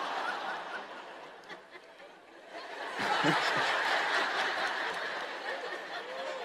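Audience laughing. The laughter dies down, then a second wave rises about three seconds in.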